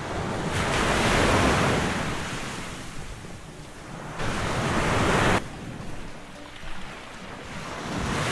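Surf breaking on the shore: two waves wash in, the first about half a second in and the second around four seconds in, the second cutting off sharply, with wind noise on the microphone.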